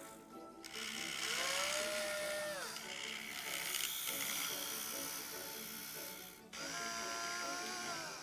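Small electric motor and gearing of a scale RC model whining twice, each time rising in pitch, holding steady and winding down, over background music.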